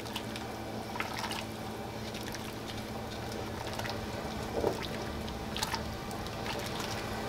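Wooden spoon stirring a pot of thick chicken noodle soup: soft wet sloshing with a few light knocks of the spoon against the pot.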